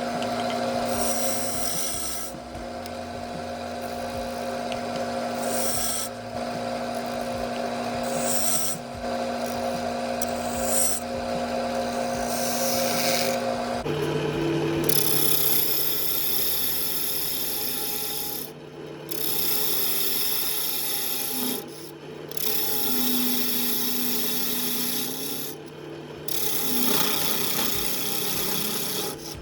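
Wood lathe running with a steady motor hum while a tool rasps against the spinning wood. The hum drops to a lower pitch about halfway through, and the scraping comes and goes in stretches of a few seconds.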